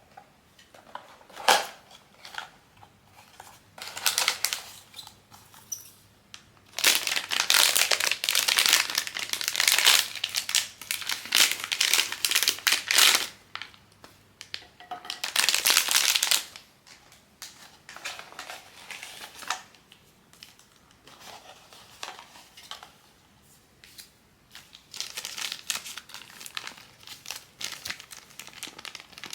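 Plastic packaging of a blind-box figure being handled and torn open: bursts of crinkling and tearing, loudest through the middle, with a sharp click near the start.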